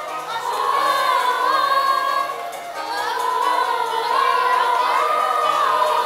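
A chorus of young voices singing a stage-musical number, with long held notes.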